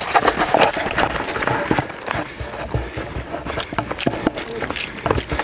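Trail runners' footsteps on a stony, gritty path: an irregular patter of crunches and scuffs, with rustle from the handheld camera moving.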